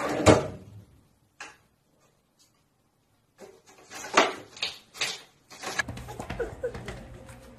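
A cabinet drawer sliding open as a cat pulls it with its paw, then a click and a few sharp knocks and rustles as the cat paws through the clothes in the drawer. Near the end there is a low steady hum with scattered light taps.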